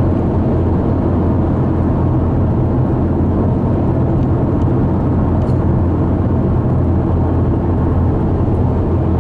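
Steady road noise and engine drone inside a car cruising at highway speed: a constant low rumble of tyres and engine.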